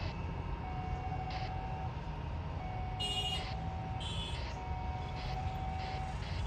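Jet airliner engines running at a distance: a steady low rumble with a faint on-off whine. Two short high chirps about three and four seconds in.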